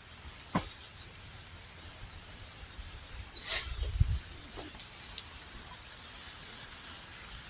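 Steady hiss of light rain falling, with a short click about half a second in, a brief rustle about three and a half seconds in and a low thump just after it.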